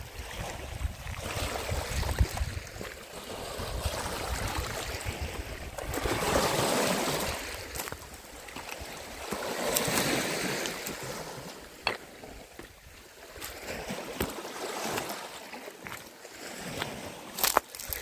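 Small sea waves lapping and washing over stones at the water's edge, swelling and fading every three or four seconds. Low wind rumble on the microphone at the start, and a few sharp clicks near the end.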